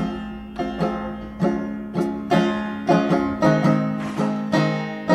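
Background music: plucked string notes about twice a second over a steady low held note.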